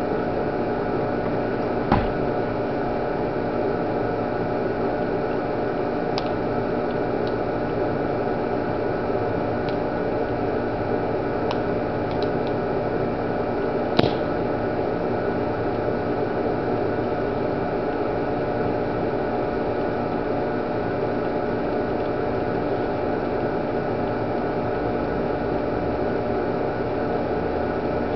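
Steady droning hum with hiss, like a fan or window air conditioner running. A sharp click about two seconds in, and a louder pop about halfway through as the homemade smoke bomb in a plastic bottle vents a plume of smoke.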